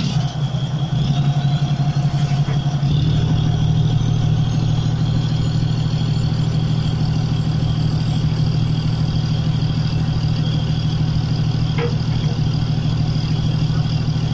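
Fishing trawler's engine running with a steady low drone that grows louder about three seconds in, as a faint whine rises in pitch over the next few seconds. A single short click comes near the end.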